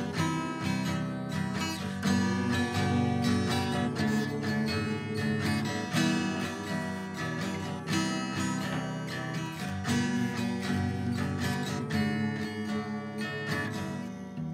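Acoustic guitar playing an instrumental passage of a Kabyle song, chords strummed with a strong stroke about every two seconds and picked notes between them, growing quieter near the end.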